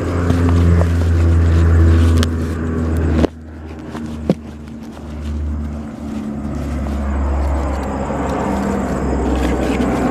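A motor vehicle's engine running as a steady low hum that shifts slightly in pitch. It drops off abruptly about three seconds in, then builds back up. A few light scrapes and clicks sound over it.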